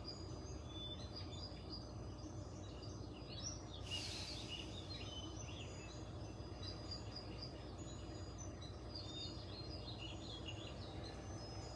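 Faint birds chirping, many short calls scattered through, over a steady low hum. A brief soft rush of noise comes about four seconds in.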